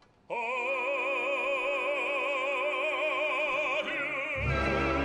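Operatic baritone singing a long held note with wide vibrato over orchestra, with the orchestra coming in fuller and lower about four seconds in.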